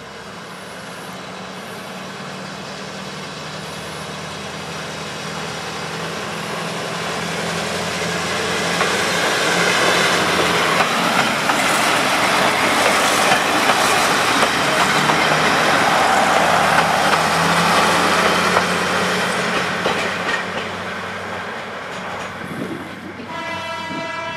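A Kominato Railway KiHa 200 diesel railcar runs past at close range. Its engine drone and the rumble of its wheels on the rails build gradually, are loudest for several seconds in the middle, then fade. Just before the end a train horn sounds one steady multi-tone blast.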